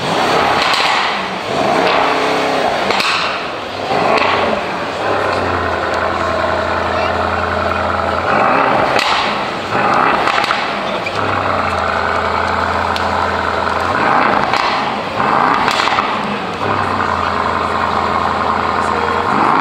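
Brabus 700 E63's twin-turbo V8 being revved several times through its exhaust, each rev rising and falling back to a steady idle in between.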